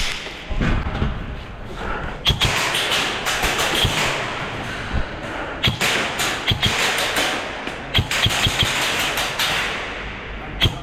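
Airsoft guns firing, several short bursts of sharp shots in clusters, with single cracks near the end.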